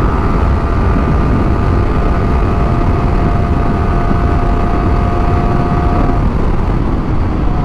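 Yamaha R15 V3 sport bike at highway speed: the single-cylinder engine holds a steady high-rev tone under heavy wind rush on the microphone. The engine tone fades out about six seconds in, leaving mostly wind.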